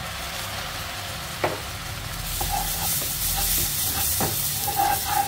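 Salted duck egg yolk frying in a nonstick wok, sizzling and bubbling as fish sauce is added. The sizzle grows louder about two seconds in, while a plastic spatula stirs and scrapes the pan, with a few sharp scrapes.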